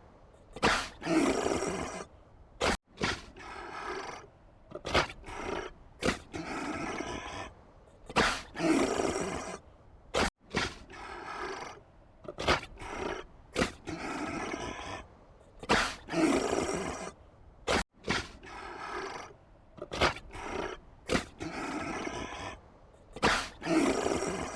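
A large animal's loud calls, each about a second long, broken by short sharp clicks; the same run of calls repeats about every seven and a half seconds.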